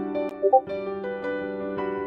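Soft instrumental background music of plucked, sustained notes, with a short two-note chime about half a second in.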